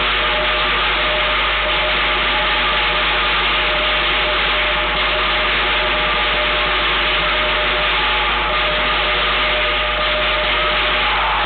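Lion dance percussion (drum, cymbals and gong) playing without pause, heard as a loud, steady wash in which no separate beats stand out.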